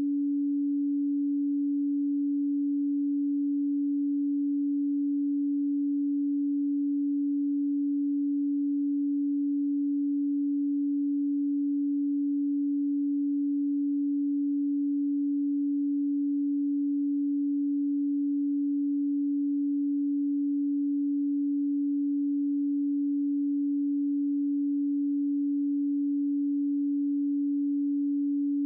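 A pure 285 Hz sine tone, one steady unchanging pitch with no overtones, played as a Solfeggio healing frequency.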